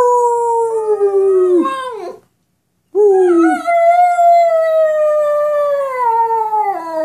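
A pet dog howling with its head thrown back: two long howls that slide down in pitch, with a short break about two seconds in, the second one held for about four seconds.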